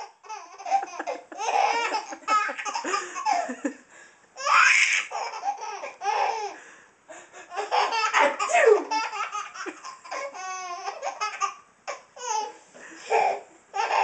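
A baby laughing hysterically in repeated fits of belly laughter, with short breaks between the bursts.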